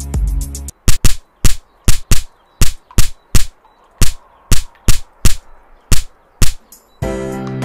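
About a dozen sharp gunshots, fired one at a time at irregular intervals and sometimes in quick pairs. The music stops as the shots begin, and gentle acoustic guitar music starts near the end.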